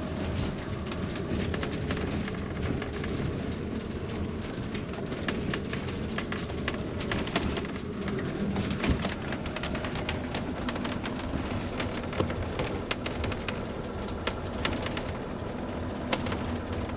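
Motorhome driving slowly, heard from inside the cab: a steady engine and road hum with frequent small clicks and ticks running through it.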